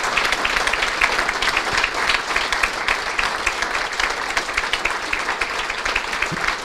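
Audience applauding: many hands clapping in a dense, steady stream that eases slightly toward the end.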